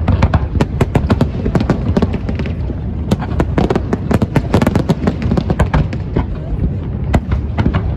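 Aerial fireworks going off in quick succession: many sharp bangs and cracks, several a second, over a continuous low rumble of booms.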